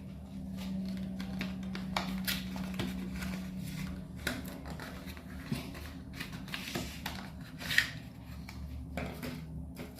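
Unboxed items and packaging being handled: scattered clicks, taps and rustles, the sharpest near the end, over a steady low hum that weakens about four seconds in.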